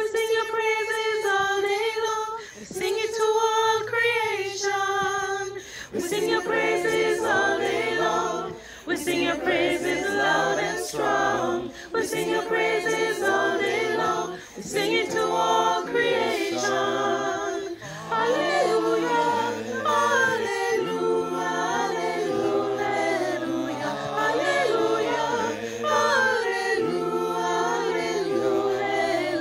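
A cappella mixed choir singing a hymn. Women's voices carry it alone at first; about six seconds in, lower men's parts join and the choir sings in harmony.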